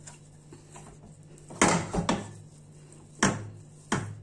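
Wooden spoon knocking against a nonstick frying pan while a thick semolina-and-cheese dough is worked. There are four sharp knocks in the second half, two close together and then two more, over a faint steady low hum.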